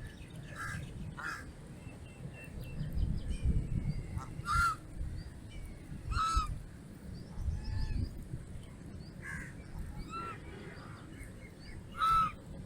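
Geese honking: short separate honks at irregular intervals of a second or two, the loudest three near the middle and just before the end.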